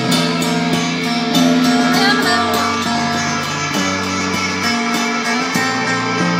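Live rock band playing electric guitars through amplifiers, sustained notes over a steady beat.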